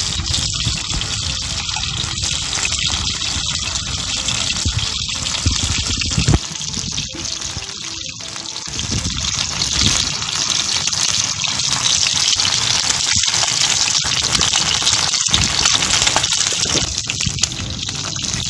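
Fish sizzling steadily as it fries in hot oil in a black iron pan.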